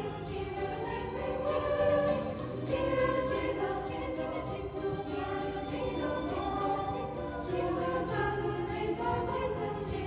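A treble choir of teenage girls singing a Christmas song in parts, accompanied by piano.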